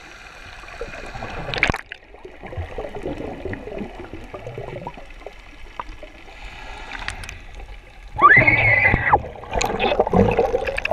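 Water gurgling and moving, heard with the microphone under the surface. About eight seconds in there is a sudden loud, muffled burst of sound, and more loud splashing and churning follows as the camera nears the surface.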